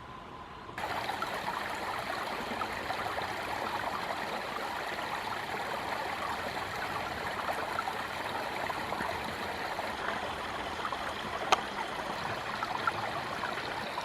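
Small mountain stream babbling and gurgling over rocks, steady and dense. It comes in suddenly about a second in, after a quieter stretch. A single sharp click sounds near the end.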